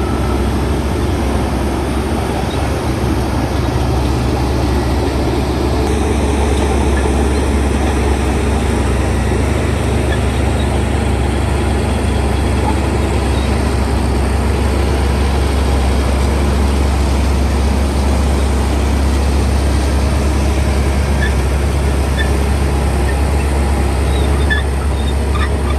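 A heavy diesel engine of earthmoving machinery running steadily at constant speed, a loud, deep drone that neither rises nor falls.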